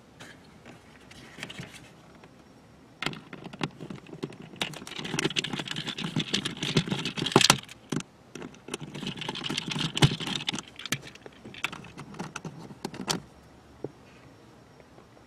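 Rigid plastic dashboard trim around the glovebox opening being flexed and pulled aside by hand: a run of clicks, crackles and scraping that starts about three seconds in, is busiest in the middle and thins out near the end.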